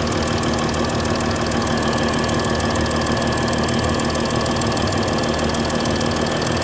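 Mercedes-Benz S320 engine idling steadily with a fast, even ticking, the sign of a bad injector nozzle gasket leaking compression past the injector seat.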